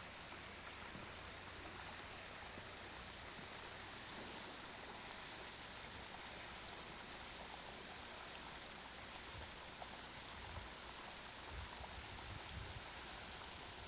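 Faint, steady rushing hiss, even across high and low pitches, with a few low wind bumps on the microphone near the end.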